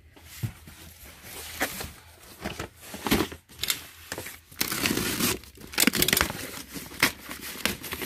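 A cardboard box being slit open with a snap-off utility knife and its flaps pulled apart: scraping, tearing and rustling of cardboard in short strokes, with a longer, louder rasp about halfway through.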